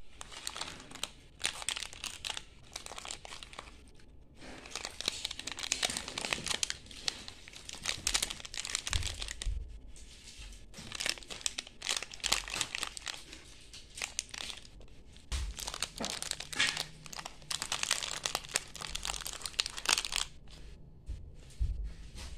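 Crinkly plastic wrappers of small orange-flavoured wafer-cone sweets rustling and crackling in irregular bursts as the packets are handled, with tearing as a packet is ripped open.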